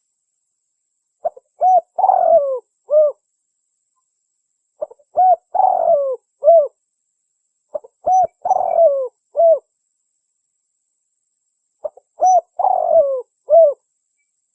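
Spotted dove (derkuku) song as used for a lure call. It comes as four repeated cooing phrases about every three and a half seconds. Each phrase has a short note or two, a couple of short coos, a longer coo falling in pitch and a final coo.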